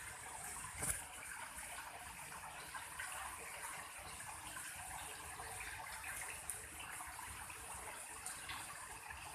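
Water falling and splashing steadily down an artificial waterfall, with a single brief knock about a second in.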